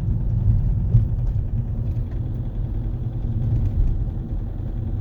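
Toyota 2AD-FHV four-cylinder common-rail diesel running under load at low revs while driving, with a rattling knock from a faulty injector that the owner traces to cylinder one, since the sound goes away when that injector is unplugged.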